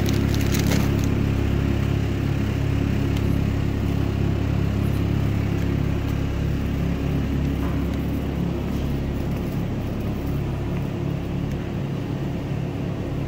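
A shopping cart rolling along a smooth store floor, its wheels making a steady low rumble, picked up by a phone riding on the cart.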